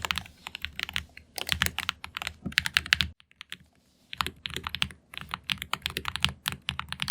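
Rapid typing on the ROG Falcata mechanical keyboard, a quick run of keystroke clicks that stops for about a second in the middle and then resumes.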